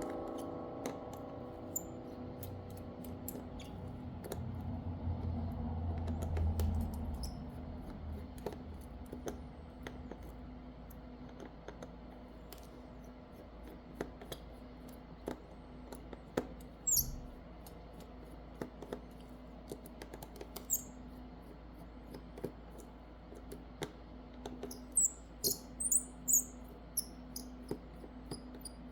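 Small hand tools clicking and tapping on a smartphone being taken apart, with a few short high squeaks near the end. Background music fades out early on.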